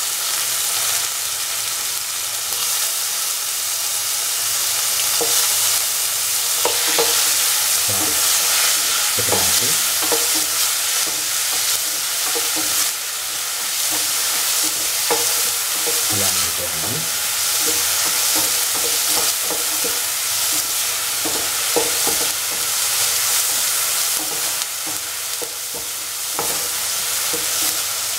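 Tomato pieces frying with onions and garlic in hot oil, sizzling steadily, as the pan is stirred with scattered scrapes and knocks of the utensil.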